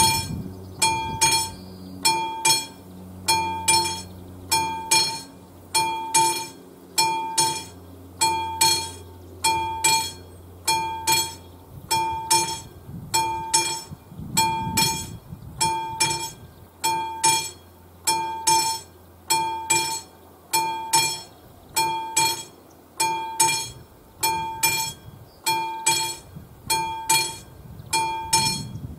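Classic electromechanical level-crossing bell ringing with steady, evenly spaced strikes, each one ringing on briefly: the warning that the crossing is closed and a train is approaching.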